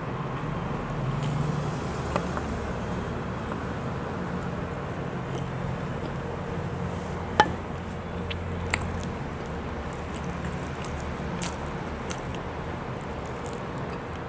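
Small clicks and wet squishes of rice and adobo sauce being handled and eaten by hand, over a steady low background hum. One sharp glassy clink about seven seconds in, as a glass bowl is set down on the table.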